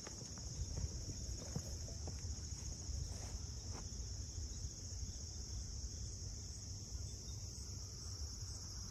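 Steady high-pitched chorus of insects trilling in the pond-side vegetation, over a low rumble with a few faint clicks in the first few seconds.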